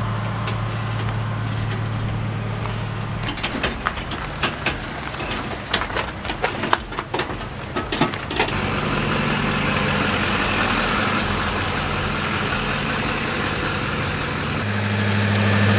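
GMC pickup truck's engine running at low speed with a steady low hum, slowly towing a travel trailer past. A run of scattered clicks and knocks comes in the middle.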